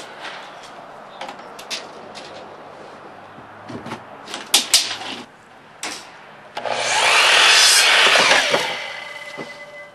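Scattered knocks and taps on wood, then a power saw cutting through a board for about two and a half seconds, starting about two-thirds of the way in and fading out near the end.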